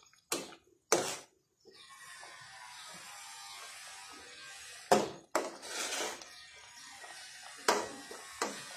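A spatula knocking and scraping against a metal pan as it stirs and breaks up soybeans in a simmering curry, about six separate knocks. A steady sizzling hiss from the cooking pan starts about two seconds in.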